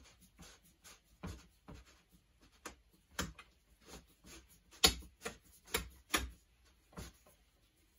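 EMT steel conduit being pushed through a row of snug red plastic clamps: a faint, irregular run of light knocks, clicks and scrapes as the tube slides in and catches, with one sharper knock about halfway through. The tube-cutter end is razor sharp and tends to bite into the clamps.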